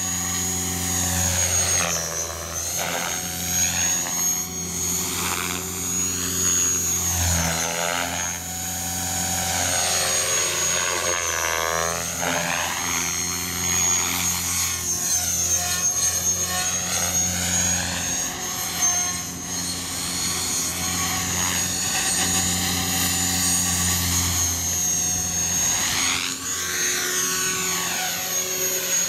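Radio-controlled model helicopter flying back and forth, its rotors and drive running steadily with a high whine on top. The sound swells and shifts as the helicopter moves nearer and farther.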